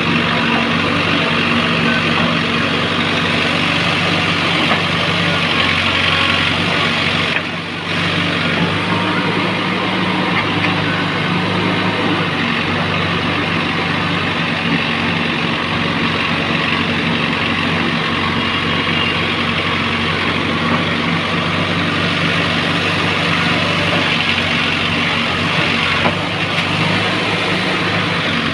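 Heavy diesel engine running steadily at an even pitch, as on a working backhoe loader. The sound drops out briefly about seven and a half seconds in.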